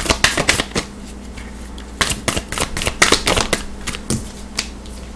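A deck of oracle cards being shuffled by hand: rapid flicking and snapping of cards in three quick runs, with a few single snaps near the end.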